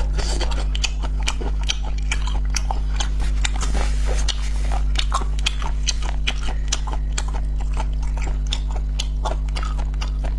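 Close-miked wet chewing of spicy grilled squid tentacles: many quick, irregular mouth clicks and smacks, over a steady low hum.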